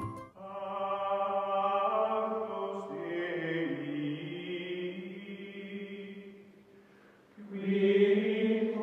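Background music of sustained, choir-like chanting with long held notes. It fades away about seven seconds in, then swells back louder near the end.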